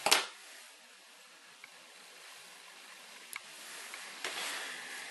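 Faint handling sounds at a fly-tying vise as the tied-off material is trimmed with scissors: a short rustle at the start, then a few light clicks and a soft rustle near the end.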